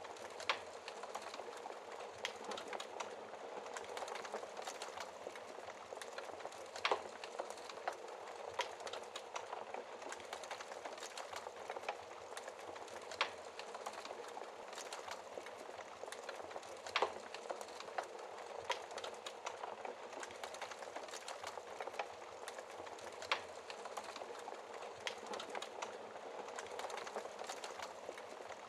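Wood fire burning in a fireplace, crackling steadily, with a sharper pop every few seconds.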